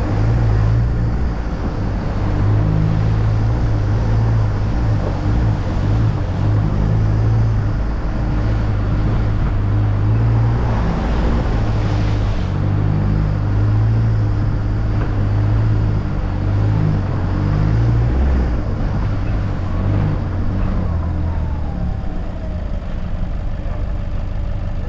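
Four-wheel-drive vehicle engine running under load as it is driven through a flooded, muddy track, with a brief rush of noise about ten seconds in. The engine note drops away about three-quarters of the way through.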